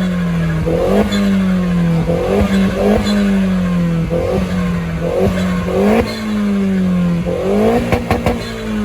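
Car engine revved hard and held high on a two-step rev limiter, its pitch leaping up and sagging back about once a second, with a short burst of sharp cracks near the end.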